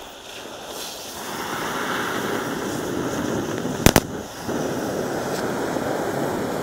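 Oxy-acetylene cutting torch hissing steadily on steel fence pipe, with two sharp, loud pops from the torch just before four seconds in.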